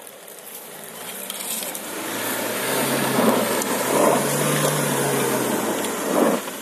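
Mahindra XUV-500 AWD's engine revving under load while its tyres spin and scrabble in loose dirt, spraying soil as the SUV struggles for grip on a steep slope. The noise builds over the first few seconds and drops away sharply near the end.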